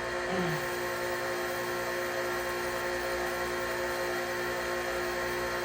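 Steady machine hum with a constant whine, even in level throughout.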